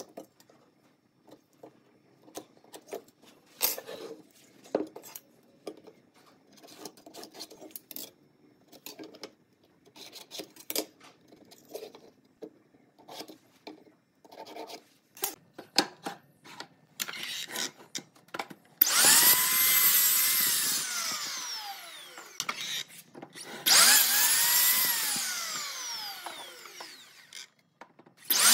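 Light taps and scrapes of a pen and steel square on wood, then a miter saw's motor starts twice, each run a loud whine that rises at the start and slowly falls as the blade winds down, with a third start right at the end.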